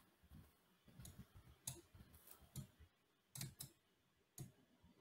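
Near silence with a handful of faint, scattered computer keyboard clicks as code is typed.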